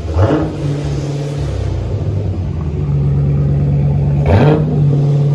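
Dodge Challenger Scat Pack's 6.4-litre HEMI V8 revving through an MBRP 3-inch true-dual straight-pipe cat-back with X-pipe. There is a sharp rev right at the start and another about four seconds in, with the engine held steady between them.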